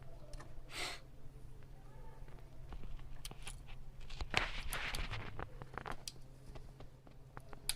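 Scattered small clicks, taps and scrapes of handling at a workbench, busiest a little past the middle, over a steady low electrical hum.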